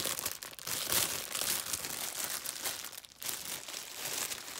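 Plastic packaging bag crinkling in the hands, a continuous irregular crackle, as a squishy toy is worked out of it.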